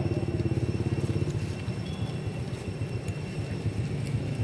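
A small engine running at idle, a quick, even low pulsing that eases a little after the first second.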